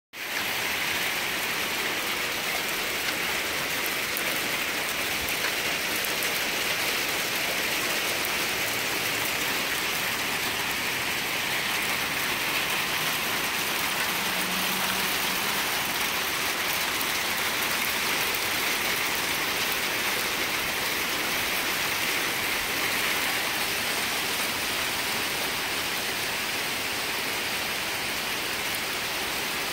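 Pea-sized hail falling steadily: a dense, even hiss of countless tiny pellet impacts that does not let up.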